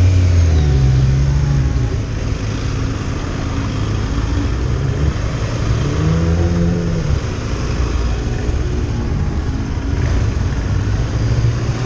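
Motorcycle engine pulling away and accelerating, its revs climbing and dropping about a second in and again around six seconds in, with wind rushing over the microphone.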